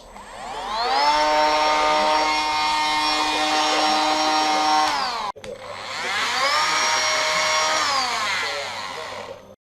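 The electric motor of a Parkside POFA 12 A1 12 V cordless tool spins up with a rising whine and runs at steady speed, then cuts off abruptly about five seconds in. It spins up again and then winds down with a falling whine near the end.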